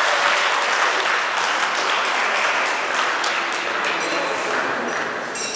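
Audience applauding steadily, fading out near the end with a sharp click just as it stops.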